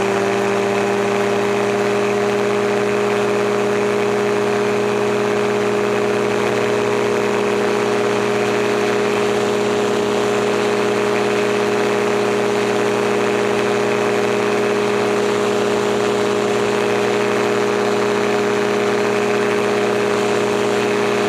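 Gyroplane engine and propeller running at steady power, one constant droning note over a wide rushing noise.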